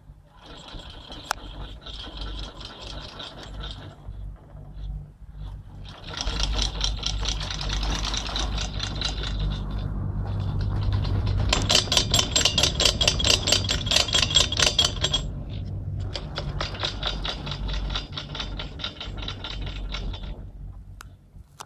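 Chairlift haul rope and running gear rattling as the chair rides the line: a fast, even clatter that comes in spells of a few seconds over a low rumble.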